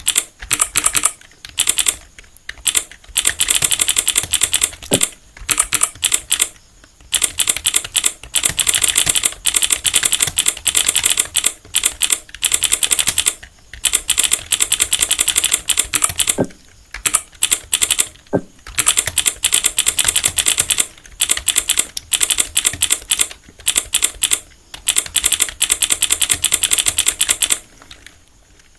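Typing on a computer keyboard at a steady, unhurried pace for a typing-speed test: a continuous stream of key clicks broken by short pauses every few seconds.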